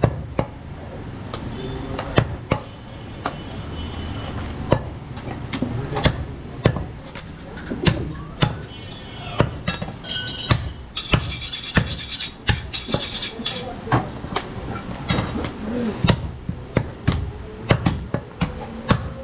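Butcher's cleaver chopping goat meat on a wooden chopping block: irregular sharp knocks, about one or two a second.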